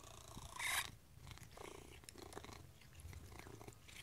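Maine coon cat purring steadily, close up, with one short, louder sound just under a second in.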